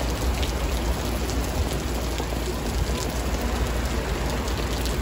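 Steady rain falling on wet paving stones: a dense, even hiss with a few sharper drop ticks and a low rumble underneath.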